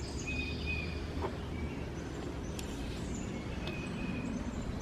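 Birds chirping in the background over a steady low rumble of outdoor ambience, with a few faint taps.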